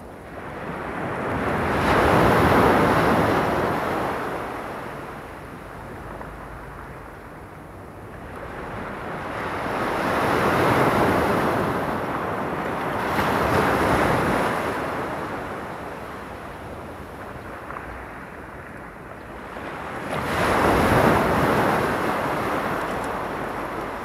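Small waves breaking and washing up the shore. The surf swells and fades four times, a few seconds apart.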